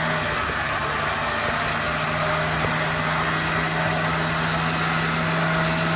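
Off-road 4x4's engine running steadily at an unchanging pitch, held at idle.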